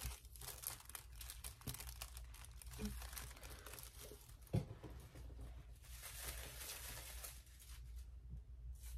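Thin paper sheet crinkling and rustling as a leaf gel print on it is handled, with one light knock about halfway through.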